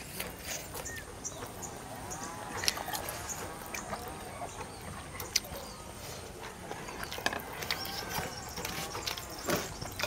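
Eating sounds: spoons and forks clicking and scraping on paper-lined plates, and chewing. Animal calls sound in the background twice, about two seconds in and again near eight seconds.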